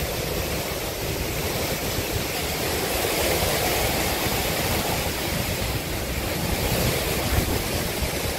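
Derecho wind blowing at hurricane force with wind-driven rain: a steady, loud, unbroken rush of noise.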